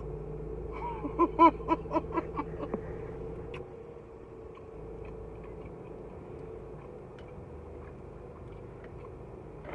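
A woman's quick run of about eight short pitched vocal sounds, starting about a second in and fading away over two seconds. A faint steady hum with a few small ticks follows.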